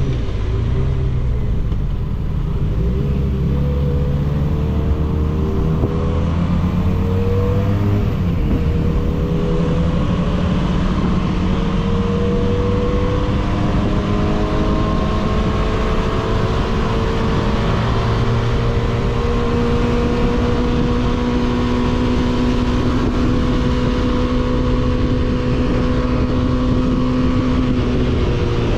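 300 cc motorcycle engine through an aftermarket 302s exhaust, ridden under way. It revs up and drops back at gear changes twice in the first several seconds, then pulls in a higher gear with the pitch slowly climbing and then holding steady.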